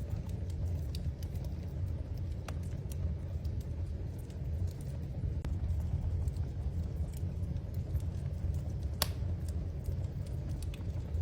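Wood fire burning in a fireplace: a steady low rumble of the flames with scattered sharp crackles and pops, the loudest pop about nine seconds in.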